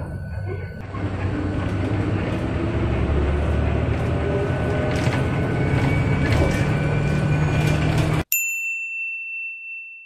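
Cabin noise of a moving city bus: steady engine and road rumble with light rattles. About eight seconds in, it cuts off and a single bright ding chime rings and fades away.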